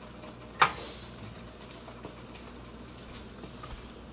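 Metal cooking tongs set down with one sharp clack about half a second in, followed by a brief ring. A low steady hum runs underneath.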